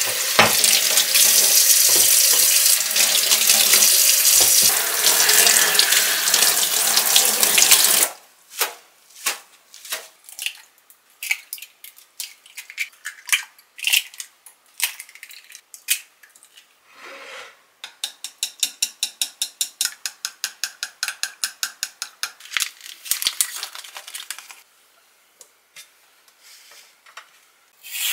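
Kitchen tap running into a sink as carrots are rinsed under it, stopping suddenly about eight seconds in. Then come scattered sharp clicks and taps as eggs are cracked into a glass measuring cup, and later a quick run of even strokes, about five a second.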